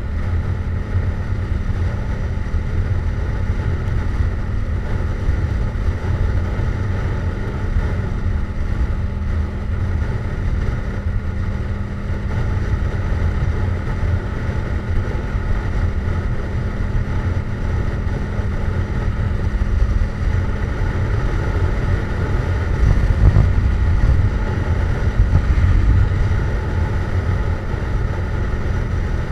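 Yamaha MT-07's 689 cc parallel-twin engine running through a Jeskap GP aftermarket exhaust while riding at a fairly steady pace, with wind noise on the microphone; it gets a little louder after about twenty seconds.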